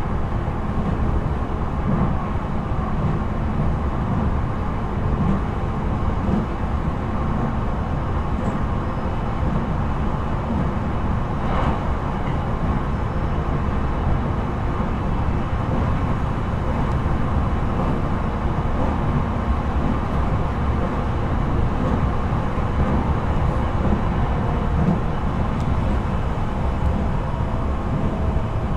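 Inside a JR East E721-series electric multiple unit motor car running on the line: a steady rumble of wheels on rail and the car body, with one faint tick about twelve seconds in.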